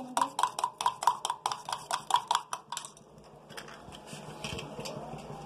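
A metal spoon beating raw eggs in a stainless steel tumbler, clinking rapidly against the sides about five times a second, then stopping about three seconds in.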